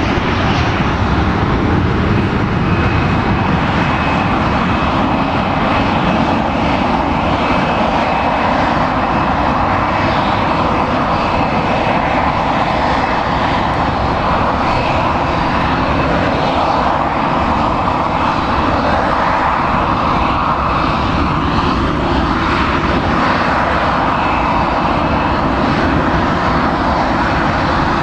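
Jet engines of a Boeing 737-800 (CFM56-7B turbofans) running steadily and loudly, with a thin high whine over the deep rushing noise.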